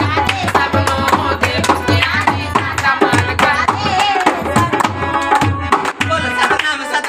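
Singing to a steady hand-drum beat.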